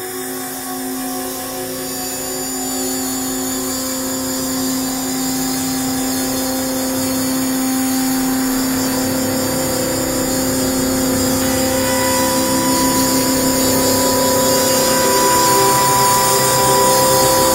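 Layered, sustained droning tones, an ambient drone score, that slowly swell in loudness. A new, higher tone joins about two-thirds of the way through.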